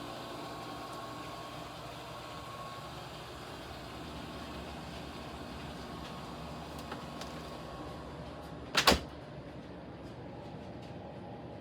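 Steady low hum with a sharp double knock about nine seconds in, the loudest thing here.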